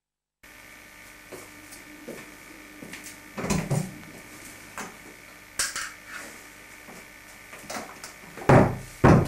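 Several knocks and bumps over a steady electrical hum from the home-video tape. The sound cuts in after a moment of dead silence, and the two loudest knocks come near the end.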